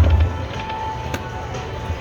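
Buffalo Lightning Link slot machine playing its electronic game music, held tones with a click about a second in, over casino background noise.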